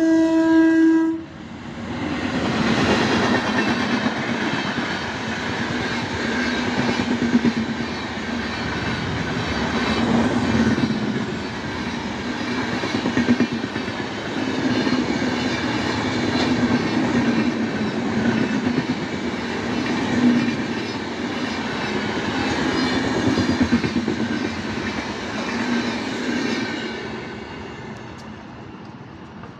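An Indian Railways train's horn sounds a steady note that cuts off about a second in. Then the train passes at speed, with a loud rumble and wheels clattering over the rail joints, fading away near the end.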